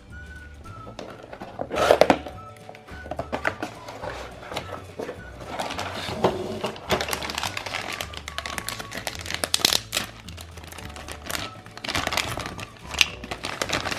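Clear plastic bags crinkling and crackling as toy parts inside them are handled, with a loud thump from the cardboard box about two seconds in, over steady background music.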